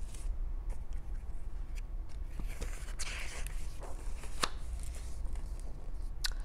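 A picture book being handled and its page turned: a few sharp paper clicks and a short rustle about three seconds in, over a low room hum.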